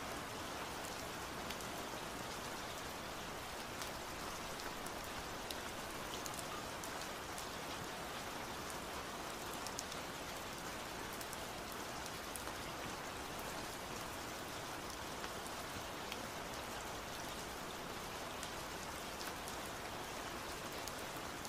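Steady rain, an even hiss with scattered small drop ticks throughout.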